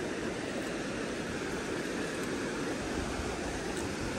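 Mountain-fed river rushing steadily, a continuous even noise.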